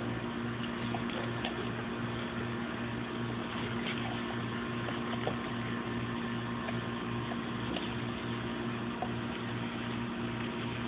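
Steady machine hum of a restaurant dining room, with a low throb repeating about two or three times a second and a few faint ticks.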